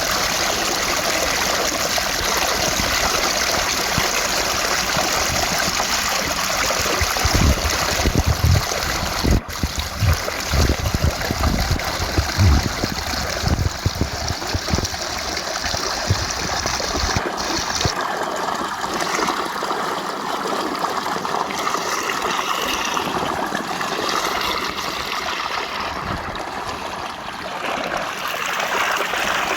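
Rushing water of a small waterfall or cascading stream, a steady splashing rush, with a few low thumps in the first half. A little past halfway the deep part of the rush drops away and the sound turns lighter and more trickling.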